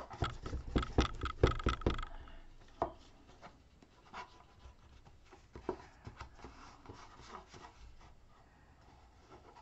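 A folder tool rubbed and pressed along paper glued inside a chipboard box, burnishing it down. There is a quick run of loud scraping strokes with some knocks for about two seconds, then fainter, scattered rubs.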